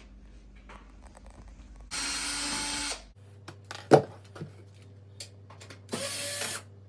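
Cordless drill with a Phillips bit backing out the screws of a range's back panel: two short runs, about a second and then half a second long. A sharp knock about four seconds in.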